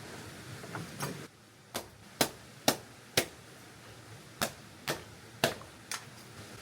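A series of about nine sharp clicks or knocks, roughly two a second, with a pause of about a second in the middle.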